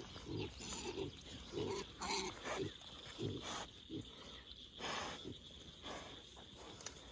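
Berkshire sow grunting softly as she walks, a run of short low grunts about every half second, with two brief louder noisy bursts about two seconds in and near five seconds.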